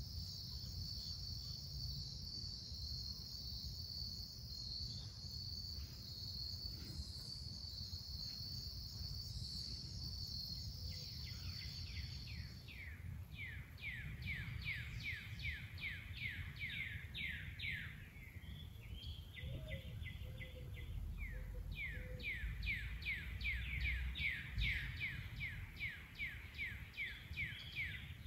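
Outdoor ambience: an insect's steady high-pitched trill that stops about twelve seconds in, followed by a songbird singing long runs of quick downslurred chirps, about four a second, over a low background rumble.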